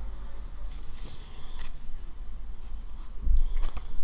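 Paper rustling as a booklet's pages are handled and turned, in two spells: about a second in and again near the end, the second with a low handling thump.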